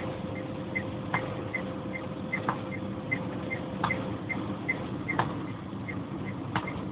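Inside a moving car in the rain: steady engine and road hum, with the windshield wipers sweeping about every second and a third. An indicator relay clicks evenly about two and a half times a second.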